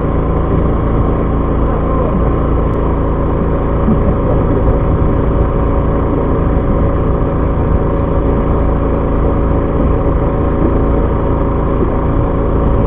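Fishing boat's engine running with a steady, unchanging drone made of several constant hum tones.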